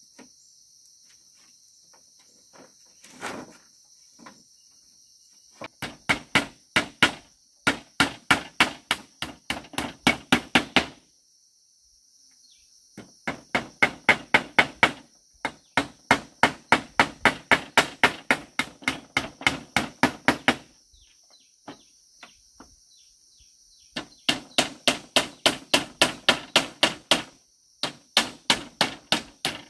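A tool striking bamboo in quick runs of blows, about four a second, each run lasting several seconds with short pauses between. Insects buzz steadily in the background.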